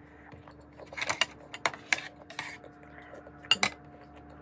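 Eating sounds at a plate of vegetables: short sharp clicks and clinks in four quick clusters, as food is picked from the plate by hand and chewed.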